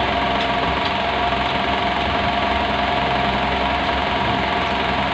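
A steady motor hum with a few faint, even tones over a low rumble.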